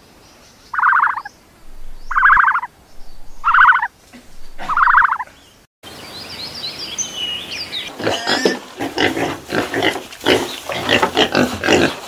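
An animal calls five times, short calls about a second apart. Then a wild boar snuffles and roots in dry dirt with a quick run of irregular scuffing and snorting noises, birds chirping faintly behind.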